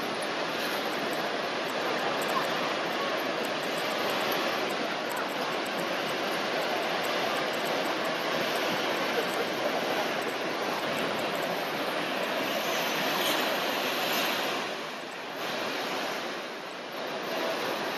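Heavy storm surf breaking and washing: a steady rushing noise that dips briefly twice near the end.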